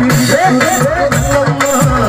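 Kerala folk song (nadan pattu) music played live: a fast, steady drum beat with a wavering melody over it.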